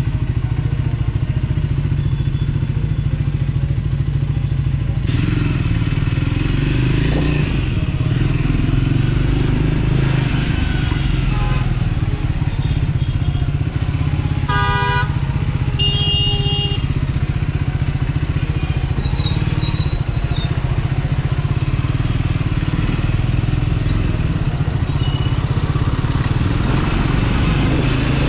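Triumph Scrambler 400X's single-cylinder engine running steadily under way, with wind and road noise. A short pitched blast sounds about halfway through, followed at once by a second, shorter one.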